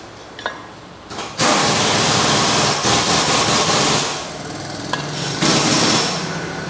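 Two-post car lift being worked at its post control: its power unit runs with a loud rushing hiss from about a second and a half in to about four seconds, and again briefly near the end, with a few clicks from the control.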